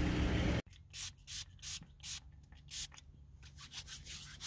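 Short scratchy rubs of hands and clothing brushing close to the microphone, coming in uneven strokes and growing busier near the end. Under a second in, a steady low outdoor rumble cuts off abruptly.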